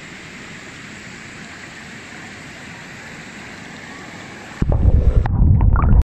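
Shallow river flowing over rocks, a steady rush of water. About four and a half seconds in it turns suddenly to a much louder, muffled low rumble and gurgling, heard with the microphone underwater.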